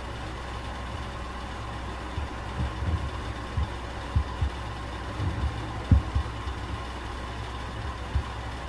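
Steady low background hum with a faint, thin steady tone above it, broken by soft low thumps at irregular intervals, the strongest about six seconds in.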